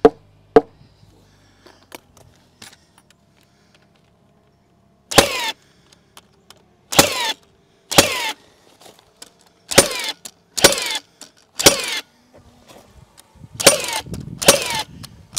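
Milwaukee power driver run in about nine short bursts, fastening the first post in place, starting about five seconds in. A couple of sharp knocks come at the very start.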